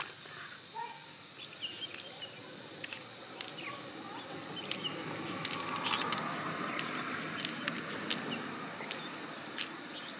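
Irregular sharp clicks of pearls knocking against each other in a hand as they are picked one by one out of a mussel's soft flesh, growing more frequent about halfway through, over soft wet squishing. A steady high whine runs behind.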